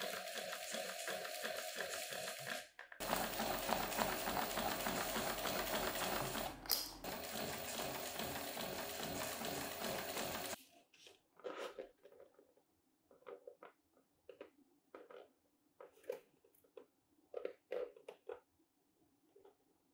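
Juki industrial sewing machine stitching through thick leather, running steadily and stopping about ten seconds in. After that come faint, scattered clicks and rustles of the leather being handled.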